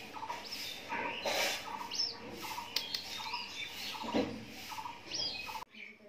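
Small black downy chick peeping: a string of short, high, squeaky calls, some rising and falling in pitch, with a few light clicks. The calls stop abruptly near the end.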